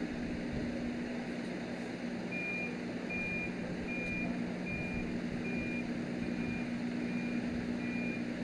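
A heavy vehicle's reversing alarm, sounding regular short high beeps a little faster than one a second, starting about two seconds in, over the steady hum of a running engine.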